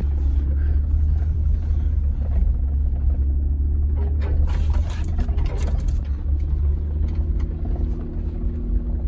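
Jeep JK Wrangler engine running steadily at low speed in four-wheel-drive low while crawling through a shallow mud pit, with a brief rush of higher noise about four seconds in.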